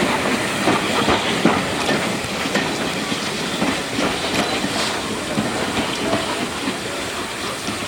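Train hauled by the A1 Pacific steam locomotive 60163 Tornado passing close by: wheels clicking over rail joints over a hiss of steam. The clicking thins out and the sound eases slightly toward the end.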